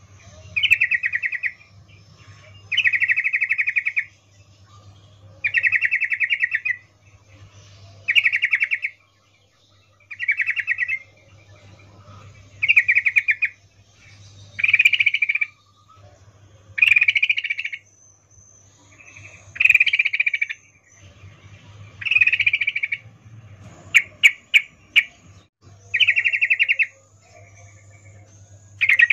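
Female yellow-vented bulbul (trucukan) giving its rapid chattering 'ngecuplik' breeding call, a female in heat calling for a male, in short bursts about every two seconds. There is a quick run of sharp clicks about three-quarters of the way through, over a faint steady low hum.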